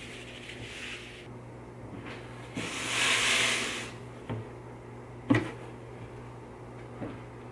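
Paper towels rustling for about a second, then a few clicks and knocks as the plastic lid of a cooler is opened, the loudest knock about two seconds after the rustle.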